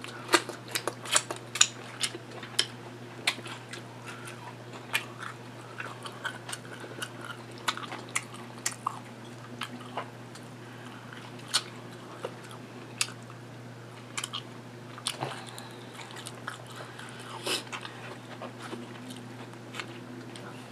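Close-miked eating: chewing and biting with irregular crisp clicks and mouth smacks, thickest in the first few seconds and sparser after, over a low steady hum.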